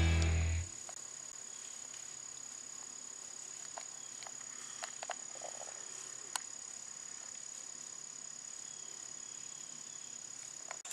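Rock music cuts off abruptly within the first second. What follows is quiet outdoor ambience: a steady high-pitched whine, with a few faint scattered clicks in the middle.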